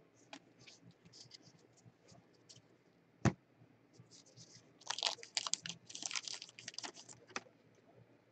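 Gloved hands handling trading cards and their plastic packaging: light scattered clicks and scrapes, a single sharp knock about three seconds in, then a run of crackly rustling from about five to seven and a half seconds.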